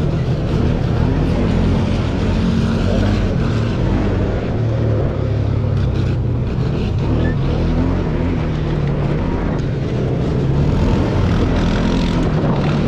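Single-cylinder ATV engine running under load as it is ridden over loose gravel, its revs rising and falling.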